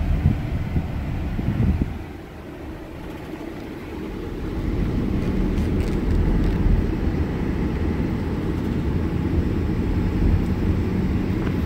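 A car driving slowly, its engine and tyre rumble heard from inside the cabin. The sound drops about two seconds in, then builds again and holds steady.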